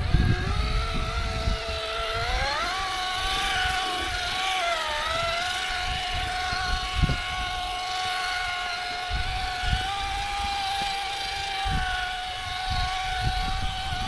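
Electric RC rock crawlers driving off-road: a steady motor and gearbox whine that rises in pitch about two seconds in, dips briefly near five seconds, then holds, over uneven low rumble and a few knocks.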